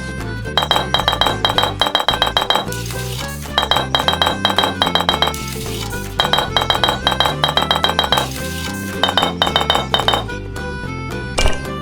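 Background music with a steady bed of shifting low notes, broken by four runs of rapid, bright clinking strokes about eight a second, and a single knock near the end.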